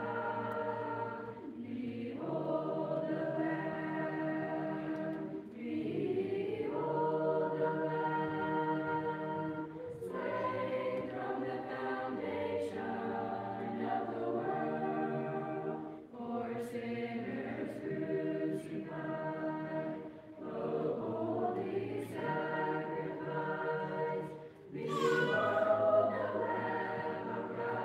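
Mixed choir of young voices singing a cappella, phrase after phrase with short breath breaks between, swelling loudest near the end.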